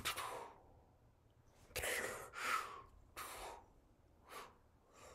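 A person's breath and mouth sounds, about five short puffs and gasps of air, the loudest two close together around two seconds in.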